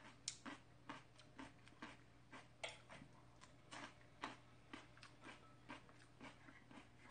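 Close-up crunching of a raw carrot stick being chewed, a sharp crunch about twice a second.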